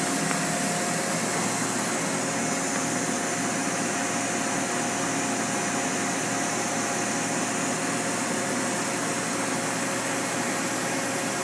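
Steady whirring hum like running fans or a blower, with faint steady whine tones in it; no change or knocks throughout.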